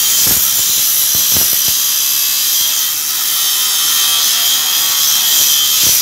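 Corded electric angle grinder with a cut-off disc cutting through metal pipe: a loud, steady, high-pitched grinding noise, with a few short knocks in the first two seconds.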